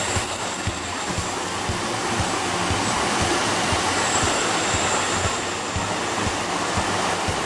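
A JR E257-series electric multiple unit passing on the line: a steady rush of wheels on rail with irregular low thuds, and a faint high squeal at the start and again about four seconds in.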